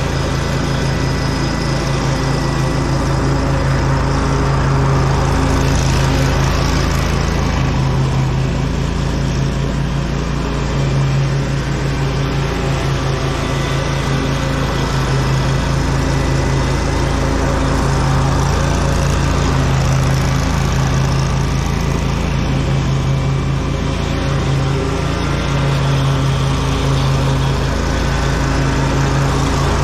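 Lawn mower engine running steadily under load while mowing, heard close up from the machine itself.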